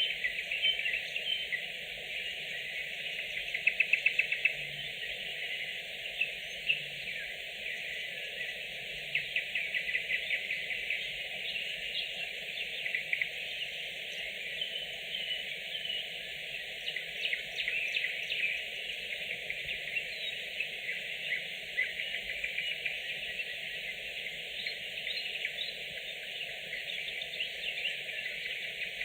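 Nightingales singing: a dense, continuous run of rapid trills, clicks and whistled phrases, with several louder rattling trills along the way over a steady low background hiss.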